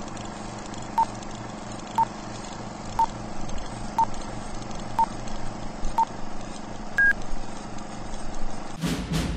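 Film-leader countdown beeps: six short beeps one second apart, then a single higher, longer beep, over a steady hiss and hum. Near the end, loud sweeping whooshes fall in pitch.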